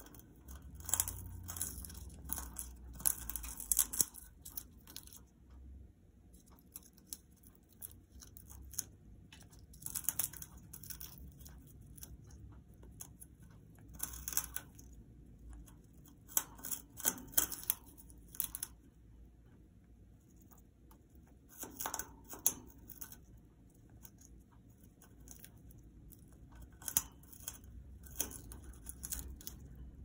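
Congo African grey parrot chewing and splintering a wooden perch with her beak: bursts of crackly crunching and tearing of wood, with short pauses between bursts.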